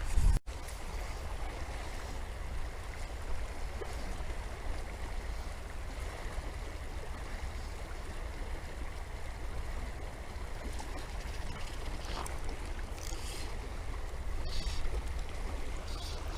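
River water running steadily over the riffles, with wind rumbling low on the microphone.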